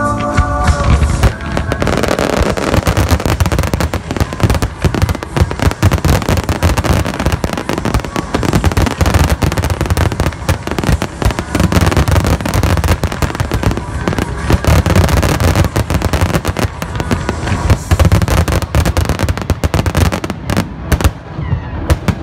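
Grucci grand finale aerial fireworks: a dense, loud barrage of shell bursts, with bangs coming many times a second without a break. The top end of the sound thins slightly near the end.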